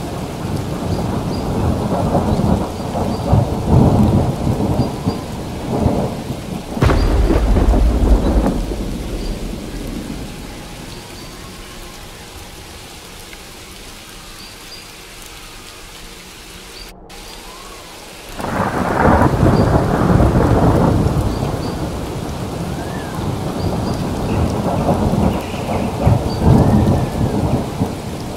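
Thunderstorm: rain with rolling thunder. A heavy peal about seven seconds in rumbles away to a quieter stretch, then a fresh loud peal breaks in about eighteen seconds in and keeps rolling.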